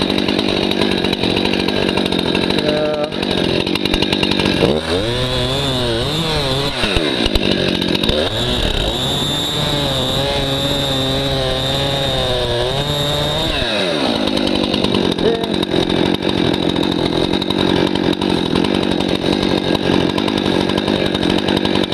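Stihl MS261 C-M two-stroke chainsaw running at idle, then throttled up at about five seconds in. It runs at high speed for about nine seconds, its pitch wavering as it cuts through a downed tree, then drops back to idle.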